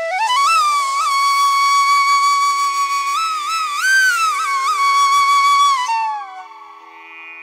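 Background music: a single melody line with long held notes and pitch bends over a faint steady drone, dying away about six seconds in.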